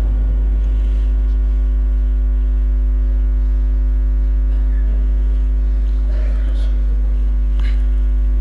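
Loud, steady electrical mains hum on the microphone and sound-system feed, a deep buzz with a stack of steady higher tones above it. A few faint short noises come near the end.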